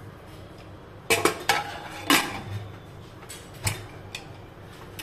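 Hawkins Classic aluminium pressure cooker being closed: its lid fitted and the whistle weight set on the vent, giving a quick run of sharp metal clanks, loudest about two seconds in, then one lighter clank later on.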